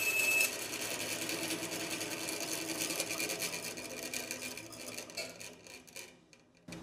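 Bandsaw blade finishing a cut through plywood, with a steady high whine that stops about half a second in as the cut ends. The saw then runs on without load and fades away over the next five seconds or so.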